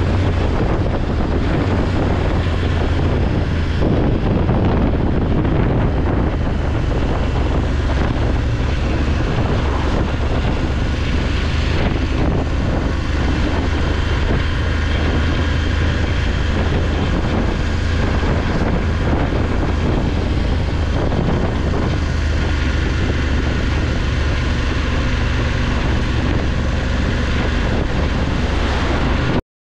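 BMW F850GS Adventure's parallel-twin engine running at a steady cruise, a low drone under wind noise buffeting the microphone. It cuts off abruptly near the end.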